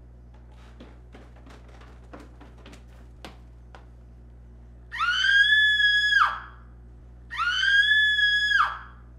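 A few light crackling ticks, then two long, high-pitched squeals about a second apart, each rising at the start, holding one pitch and dropping away at the end.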